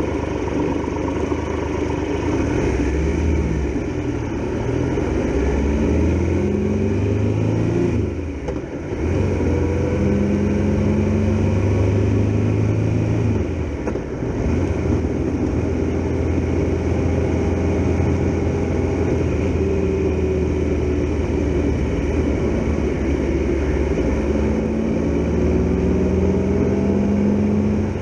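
Triumph Tiger Explorer XRx's three-cylinder engine running under way and pulling up through the revs several times. Its pitch and loudness dip briefly about eight and fourteen seconds in, as at gear changes.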